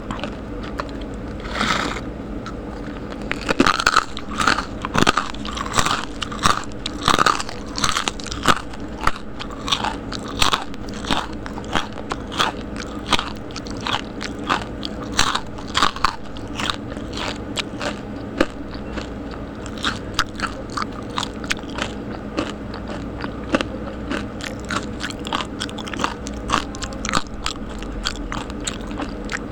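A person chewing crispy snacks close to the microphone: a steady run of loud, sharp crunches at about one or two a second.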